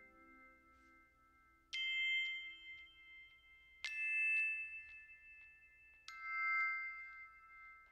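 Background music: three soft chime-like struck notes about two seconds apart, each ringing on and fading slowly.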